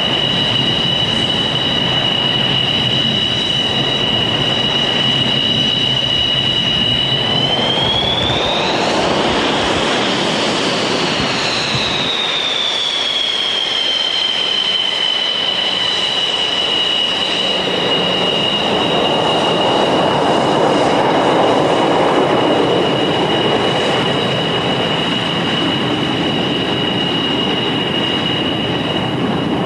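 MiG-29's twin RD-33 turbofan jet engines running on the ground: a steady high-pitched turbine whine over a rushing roar. Partway through, the whine climbs in pitch for a few seconds and then settles back, and the rushing noise swells twice.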